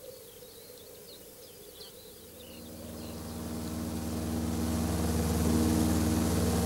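A few faint high chirps over quiet air. Then, from about two and a half seconds in, the steady drone of a propeller aircraft's engines, heard from inside the cabin, fades in and grows loud.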